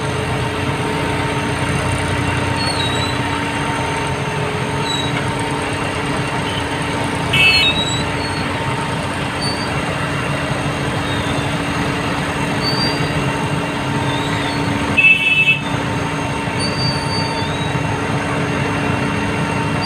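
Heavy diesel engine of a mobile hydraulic crane running steadily with a constant drone. Two short high-pitched toots cut through it, one about seven seconds in and one about fifteen seconds in.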